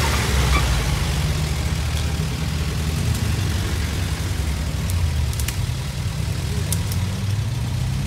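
Engine of an off-road vehicle running steadily at low revs, with a few sharp clicks or knocks in the second half.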